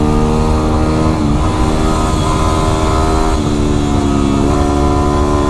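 Yamaha WR250R's single-cylinder engine running at a steady road speed, its note stepping slightly in pitch a few times as the throttle changes. Heavy low wind rumble on the helmet-mounted microphone.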